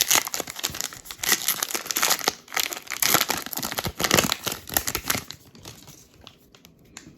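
Topps trading card pack wrapper crinkling and tearing as it is pulled open, a dense crackling that dies down about five and a half seconds in, leaving a few light clicks.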